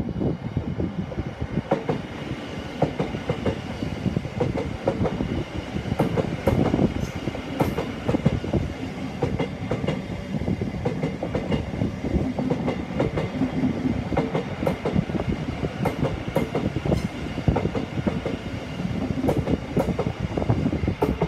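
Electric multiple-unit passenger train passing at speed, its wheels clattering steadily over the junction's rail joints and pointwork. The noise comes up suddenly at the start and holds for the whole pass.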